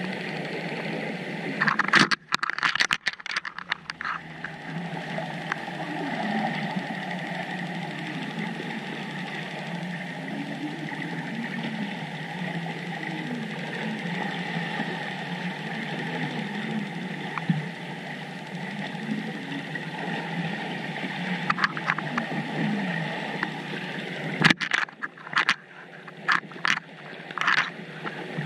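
Underwater ambience picked up through a camera's waterproof housing: a steady hiss with a faint wavering hum. There are bursts of sharp crackles and knocks about two seconds in and again over the last few seconds.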